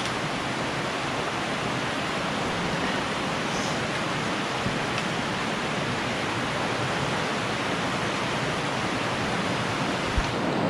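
Steady rush of a creek flowing through a cave, an even hiss of water without breaks, with one brief low bump near the end.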